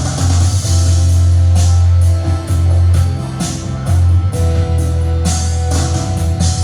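Yamaha PSR-SX900 arranger keyboard playing its rumba accompaniment style: a drum pattern, a heavy bass line and guitar parts.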